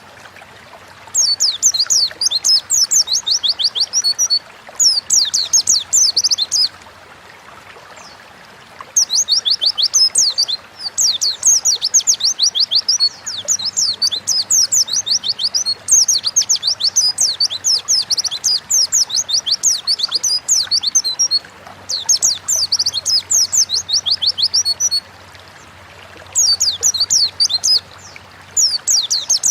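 White-eye (pleci) singing in rapid, high twittering phrases. The song comes in bouts of a few seconds each, with short pauses between them.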